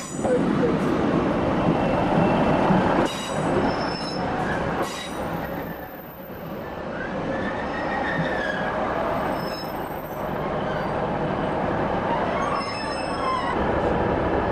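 Diesel multiple-unit passenger train running along a station platform, its wheels rumbling on the rails, loudest in the first few seconds. A few sharp clicks follow, and about halfway through a faint wheel squeal rises and then falls in pitch.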